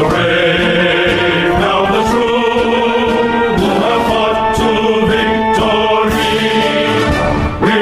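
Music with a chanted or choral vocal over sustained instrumental tones, at a steady loud level.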